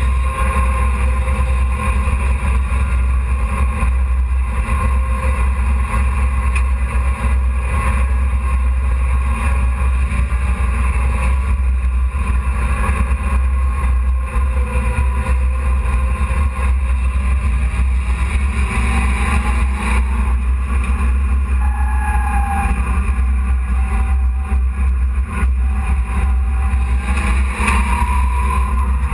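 Hobby-class dirt-track race truck's engine heard from inside the cab while driving on the track: a loud, steady low drone.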